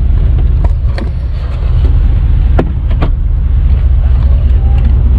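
A vehicle engine idling with a steady low rumble, with a few short knocks about a second in and again between two and a half and three seconds in.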